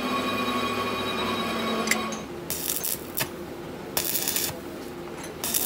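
Stick (arc) welder crackling in three short bursts, each about half a second long: tack welds on steel brake-shoe parts. Before the first weld there is a steady hum for about the first two seconds.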